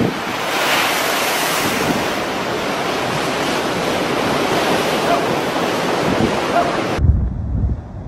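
Storm waves breaking in heavy surf with strong wind, a loud steady rush. About seven seconds in it cuts off abruptly to a lower rumble of wind buffeting the microphone.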